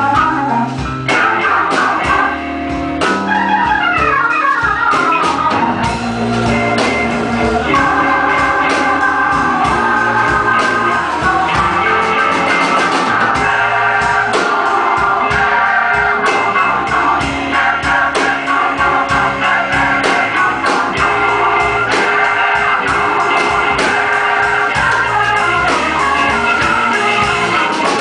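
Live blues band playing an instrumental passage led by an electric organ, which plays quick runs up and down over drums.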